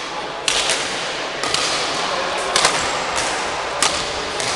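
Badminton rackets striking a shuttlecock in a rally: four or five sharp cracks about a second apart, over a steady hiss.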